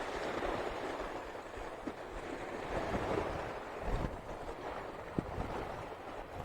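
Storm-driven river waves washing onto the shore in a steady rush, with wind buffeting the microphone and a few faint knocks.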